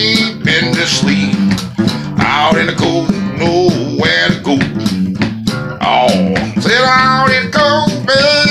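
Acoustic guitar playing a blues accompaniment with sharp picked attacks over a steady bass line. A man's singing voice joins in places, most clearly in the last couple of seconds.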